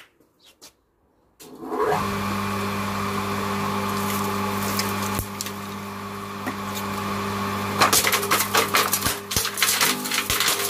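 Garden chipper-shredder motor starting up about a second and a half in and running with a steady hum; from about eight seconds sticks are fed in and the blades chip them with a rapid, irregular crackle of snapping wood.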